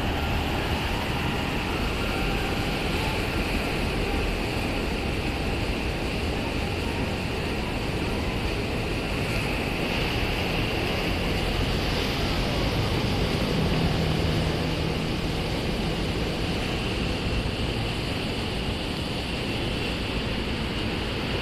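Steady rush of a waterfall cascading over rocks.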